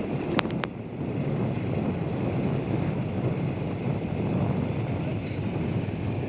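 Boat engine running steadily with water and wind noise on the microphone, and two short clicks about half a second in.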